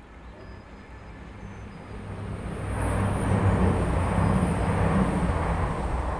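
Diesel passenger train passing at speed beneath a bridge. The engine drone and wheel-on-rail rumble build over about three seconds, then hold loud as the carriages go by.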